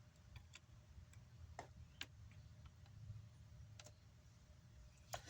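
Near silence over a low steady hum, with a handful of faint, sharp clicks at uneven intervals, like small tools or parts being handled.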